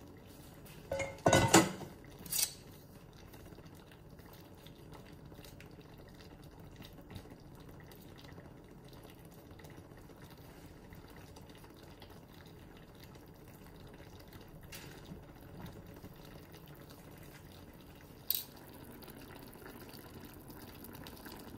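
Steak, mushrooms and onions simmering gently in a white-wine and butter sauce in a pan, a faint steady bubbling. A few loud knocks of a utensil against the pan a second or two in, and one sharp click near the end.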